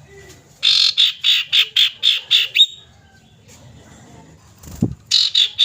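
Common iora calling: a fast run of about eight short, harsh notes, about four a second, then a second run starting near the end. A dull low thump comes just before the second run.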